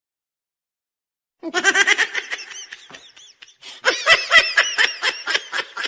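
Laughter sound effect: a run of quick, rhythmic laughs starts about a second and a half in, breaks off briefly, then comes back louder from about four seconds.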